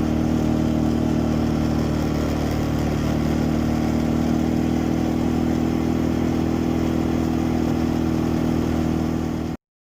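Quad bike (ATV) engine running steadily at an even pitch, cutting off abruptly near the end.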